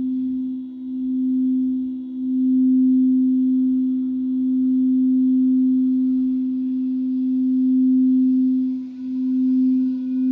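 Singing bowl sounding one sustained low tone that swells and fades in slow waves, with faint higher overtones ringing above it.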